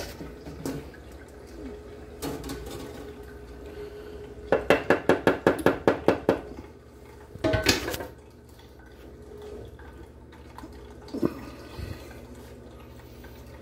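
Stainless steel cookware being handled: a quick run of about a dozen ringing metal clinks over two seconds, as a metal utensil strikes a stainless pot or bowl, then a single louder clank. A steady low hum runs underneath.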